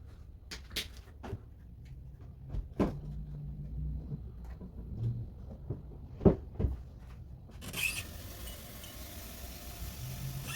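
Household floor cleaning: scattered knocks and clunks, then about three seconds of steady hiss near the end.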